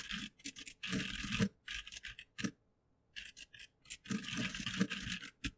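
Computer keyboard typing in several quick bursts of keystrokes with short pauses between.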